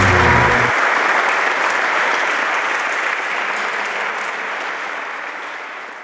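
Crowd applauding, fading out gradually. Music with a low beat cuts off under a second in.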